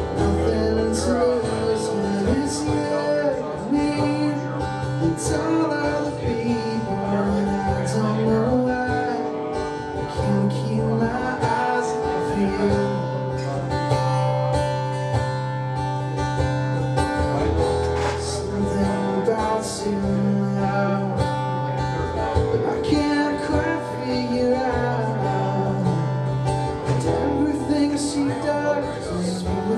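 Live song played on guitar, with long held low bass notes under the guitar chords.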